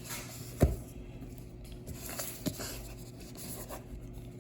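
Cardboard box being handled: rubbing and scraping against the cardboard, with one sharp knock about two-thirds of a second in and a lighter click later.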